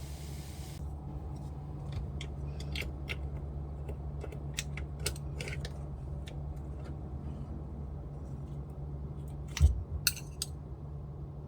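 Crisp, waffle-pressed bungeoppang being handled, giving scattered dry crackles and snaps, then a single thump and a quick burst of crackles near the end, over a steady low hum.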